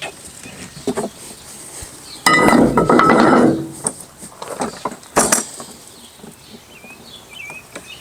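Hard plastic rolling toolbox being handled and checked over after a drop test: a few clicks, a loud clattering rattle of plastic parts about two seconds in, and a sharp knock a little after five seconds. Birds chirp faintly near the end.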